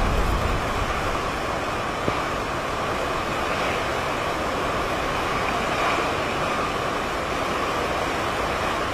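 Hurricane wind and storm-driven surf: a steady, loud rushing noise of wind and breaking water, with a low gust buffeting the microphone at the start.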